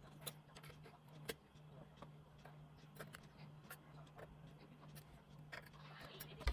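Irregular light clicks and taps of small hard parts being handled, over a steady low hum.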